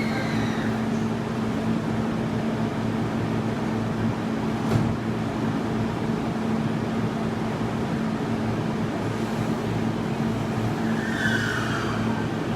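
Steady interior noise of a JR E233 series commuter train car, with a constant low hum, a single knock about five seconds in, and a short falling whine near the end.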